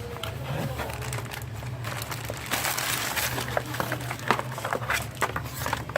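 Cardboard keyboard box being opened and handled: scattered clicks, taps and scrapes, with a stretch of rustling packaging about two and a half seconds in, over a low steady hum.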